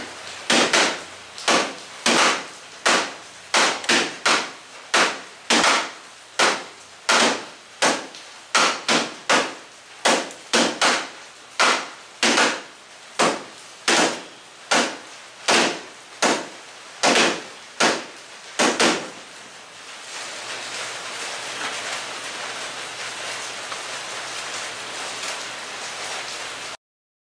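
Repeated blows on a timber beam, about three every two seconds, driving the two halves of a kama tsugi (gooseneck) joint together until it seats. The blows stop about two-thirds of the way through, and a steady hiss with a low hum is left.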